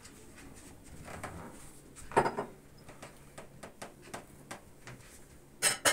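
Kitchen items handled on a table beside a kazan: a short clatter about two seconds in, a run of light clicks and ticks, then a sharper knock near the end.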